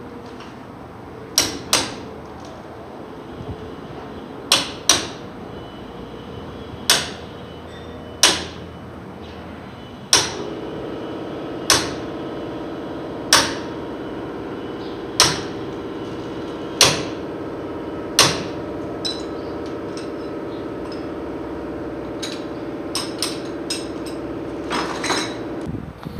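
Hammer blows on metal at a truck's wheel hub, single or paired strikes about every one and a half seconds, each with a short metallic ring. A steady machine hum comes in about ten seconds in, and lighter quick taps follow near the end.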